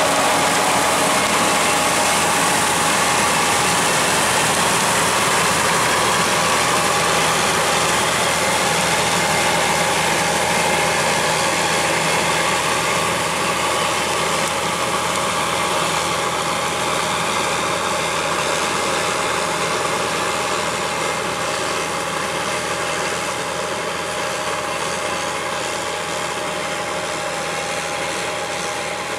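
Tracked (crawler) tractor engine running steadily, growing gradually a little quieter over the second half.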